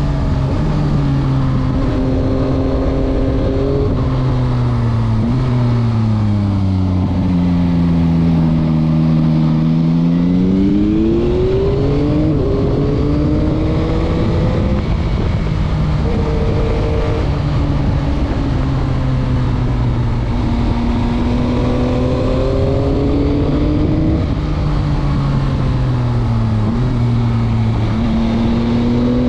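Yamaha MT-09 (2021) 890 cc inline-three engine heard onboard while riding through corners. The engine note falls off for several seconds as the throttle is closed, then climbs steeply under acceleration with a quick break in pitch at a gear change about twelve seconds in. It runs more steadily for a while, then dips and rises again near the end.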